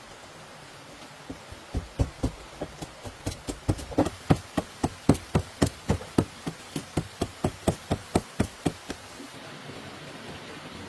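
A quick, even run of chopping blows on wood, about three or four strikes a second, starting about a second in, loudest in the middle and stopping near the end.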